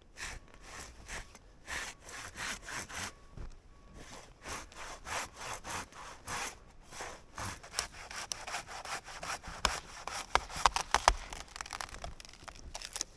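Silky Katanaboy 650, a large folding pruning saw, cutting through a log with steady push-pull strokes, about three a second, coming quicker and sharper near the end as the cut goes through.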